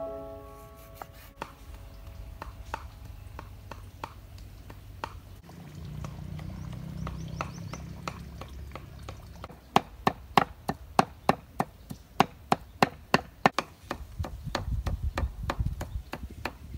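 Cleaver chopping pork on a wooden chopping board. Scattered knocks come first, then a run of fast, even chops, about three or four a second, for several seconds, and duller low thuds near the end.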